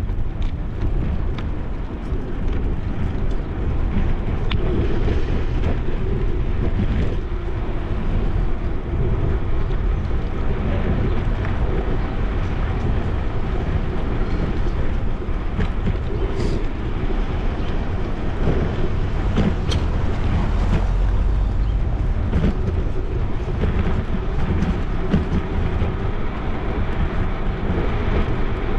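Wind buffeting a bicycle-mounted GoPro's microphone as the bike rides along, with steady tyre and road rumble and a few sharp clicks and rattles from bumps in the pavement.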